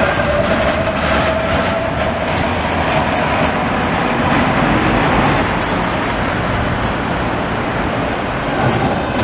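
Vintage tram rolling away along street rails: its motor whine falls and fades in the first second, leaving a steady rumble of wheels on track mixed with street traffic noise.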